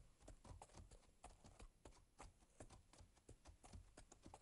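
Faint, uneven clopping of horses' hooves, several soft clops a second.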